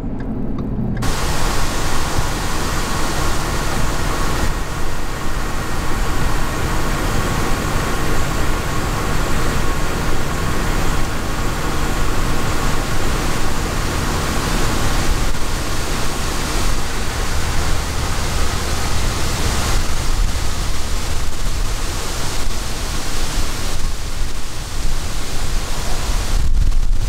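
Steady, loud rushing noise of wind buffeting the microphone.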